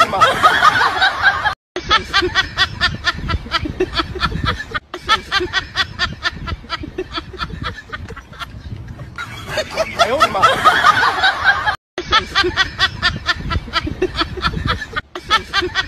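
A person laughing hard in quick, evenly repeated bursts, broken by two abrupt silent gaps.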